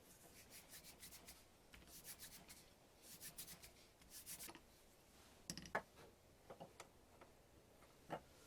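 Faint rubbing and scraping in short bursts, like something being handled or slid, followed by a few light clicks about five and a half seconds in and again near the end.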